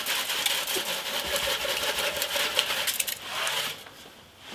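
Ice chunks and frozen apple cider vinegar slush rattling and clattering inside a metal Yamaha DT125 fuel tank as it is tipped and shaken to empty it: a dense run of small clicks that dies away about three and a half seconds in.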